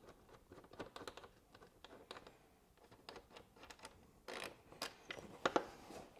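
Faint, irregular light clicks and taps of hand tools and small metal bolts being handled, a little louder and busier in the last couple of seconds.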